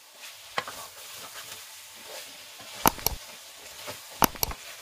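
Chicken pieces and spice masala frying in a steel pot with a faint sizzle, while the wooden spoon stirring them knocks against the pot: once about half a second in, twice around three seconds, and once more past four seconds.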